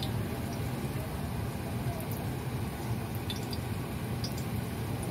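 Spring rolls deep-frying in a pan of hot oil: a steady bubbling sizzle with scattered small pops, over a constant low rumble.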